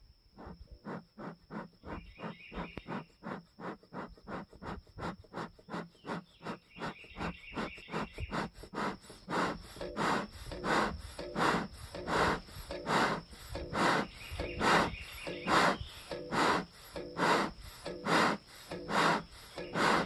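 Hand-pumped bellows of a stainless-steel bee smoker puffing air through smouldering leaves and pine needles in a steady rhythm, to fan the fire and build up smoke. The puffs come about three a second at first, then slow to about one and a half a second and get louder.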